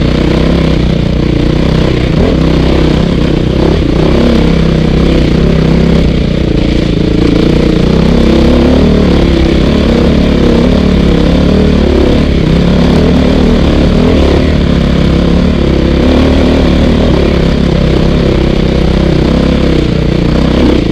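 Dirt bike engine running hard on a rough trail, its revs rising and falling constantly with the throttle, loud and close from a helmet-mounted camera.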